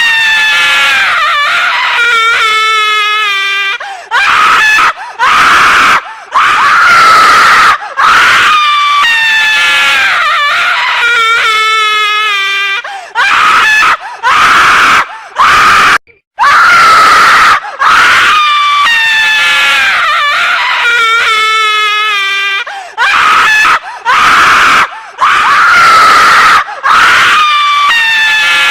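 A woman screaming loudly, over and over: long, high-pitched screams with wavering, falling pitch, broken by short gaps. The same run of screams repeats about halfway through, as a looped sound effect.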